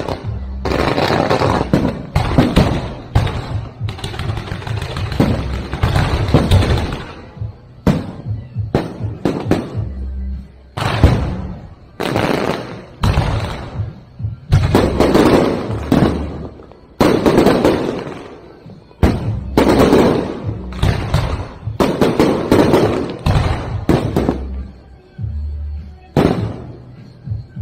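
Aerial fireworks bursting: rapid runs of sharp bangs and booms with echoing tails, coming in waves and thinning out near the end, with music playing underneath.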